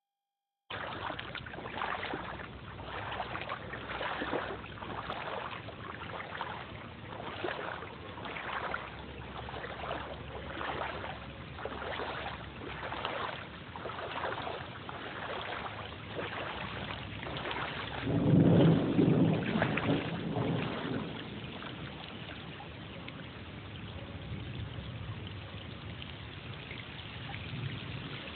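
Rushing wind and water noise, swelling about once a second, with a loud low buffet of wind on the microphone about 18 seconds in.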